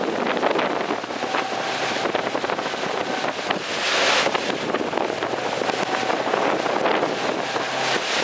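Wind buffeting the microphone over rushing water and choppy waves from on the water, with a faint steady engine hum underneath and a louder surge of hiss about four seconds in.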